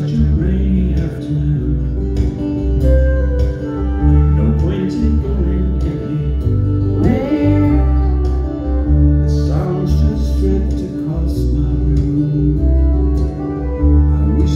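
Live band music played on stage: strummed acoustic guitars, a flute and a heavy bass under a singing voice.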